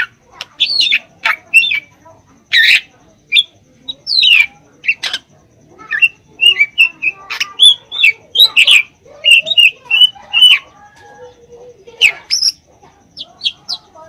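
Caged drongo (srigunting) singing in full song: a rapid, varied run of short whistles, chirps and sharp chips with brief pauses between phrases.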